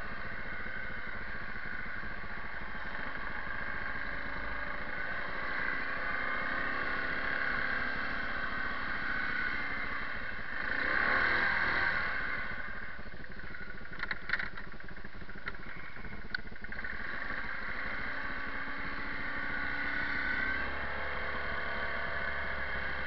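Kawasaki 360 ATV engine running steadily while the machine is ridden, rising briefly a little before halfway. A few sharp clicks follow shortly after the rise.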